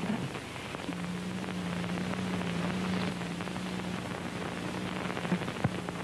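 Steady static hiss with scattered crackles and a low electrical hum that drops out briefly and returns about a second in: the sound of a badly damaged old audio tape playing.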